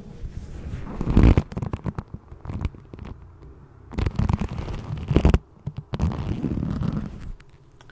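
Black leather motorcycle gloves rubbed and squeezed together against a microphone, giving crackly leather creaks, scratches and low handling rumble. It comes in three main bursts: about a second in (the loudest), around four seconds, and around six seconds.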